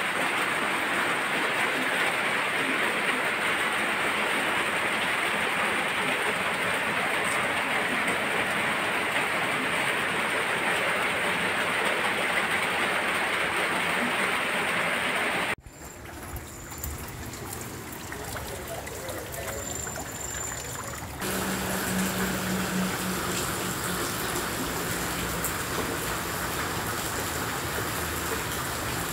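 Heavy rain and flowing water: a loud, even hiss for about the first fifteen seconds, then a sudden cut to quieter rain, which grows louder again a few seconds later.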